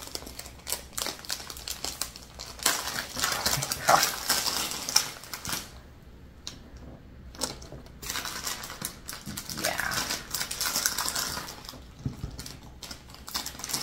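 Thin plastic packaging crinkling and crackling as a small item is handled and unwrapped, with the sharpest crackles around four to five seconds in and a quieter spell from about six to eight seconds.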